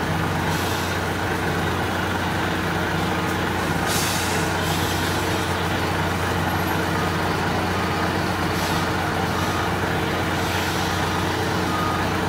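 Diesel engine of a heavy truck running steadily as it is driven slowly onto a ferry's car deck. Several short air-brake hisses come through, and faint short beeps sound in the second half.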